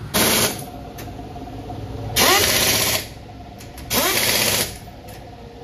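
Pneumatic impact wrench on a car's wheel nuts, run in bursts: a short burst near the start, then two longer bursts of about a second each, each opening with a rising whine as the wrench spins up.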